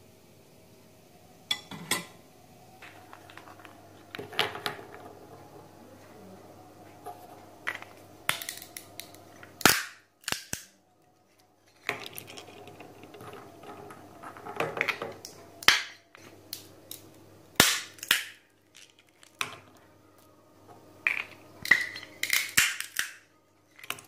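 Walnut shells cracking in a hand-held lever nutcracker: a series of sharp cracks and crunches, several coming in quick succession near the end.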